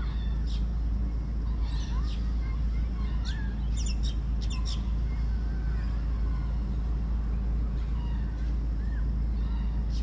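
Wild birds chirping and calling: short high notes, a quick cluster about three to five seconds in, over a steady low rumble.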